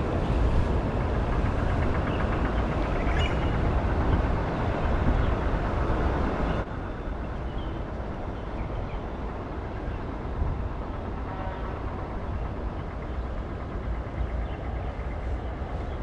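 Steady outdoor rumble and hiss, heaviest in the deep lows, dropping suddenly in level about six and a half seconds in.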